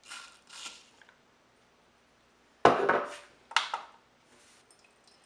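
Ground coffee poured from a cup into a paper filter in a pour-over dripper, two short rustling pours at the start. Then hard knocks and clatter of kitchenware on the counter, the loudest about two and a half seconds in and a second one a moment later.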